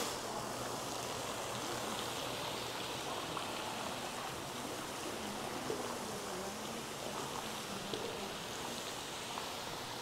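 Steady rush and patter of water falling from a ceiling rain-curtain fountain and splashing into its pool.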